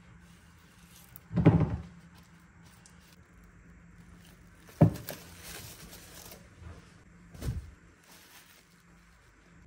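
Kitchen handling sounds while a wooden bowl of dough is covered: a loud dull thump about a second and a half in, a sharp knock near the middle followed by a second or so of plastic cling film crinkling as it is stretched over the bowl, and a softer thump near the end.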